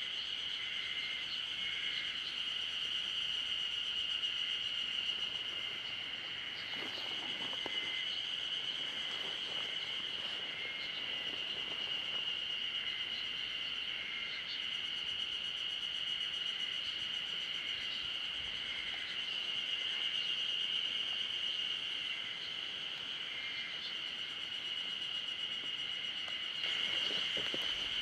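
Steady, high-pitched chorus of insects droning without a break, with a few faint bird calls now and then.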